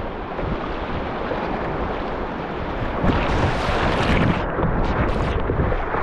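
Whitewater rushing around a kayak, with wind buffeting the microphone. About three seconds in, the bow plunges into a wave and water breaks over the bow-mounted camera in irregular splashing gushes.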